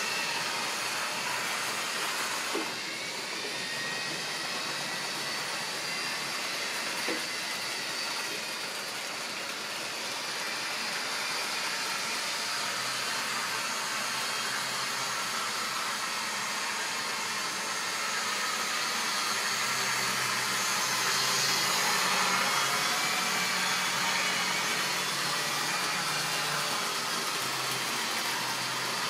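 Model railway trains running on the layout: a steady electric motor whine with the rumble of wheels on the track, and two single clicks in the first several seconds. It grows louder, with a low hum, about two-thirds of the way through as a goods train of tank wagons passes close by.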